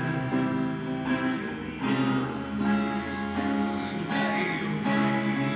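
Music built on strummed guitar chords, the chord changing every second or so.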